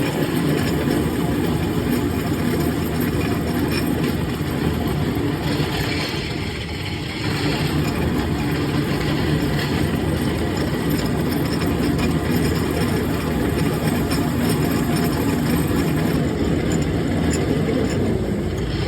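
A machine tool's motor running steadily, easing off slightly for a moment about six seconds in.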